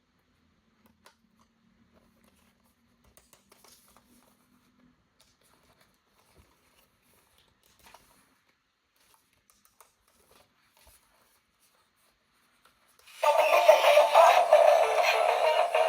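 Faint scattered clicks and rustles of toy packaging being handled, with a faint low hum for the first few seconds. About 13 seconds in, loud music with synthetic-sounding vocals starts abruptly.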